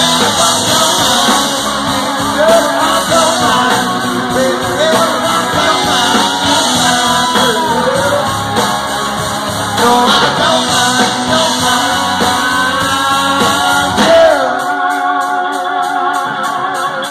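Live country-rock band playing loudly, with electric and acoustic guitars, bass and drums under a lead line that bends in pitch. About fourteen seconds in, the drums and bass drop out, leaving the guitars.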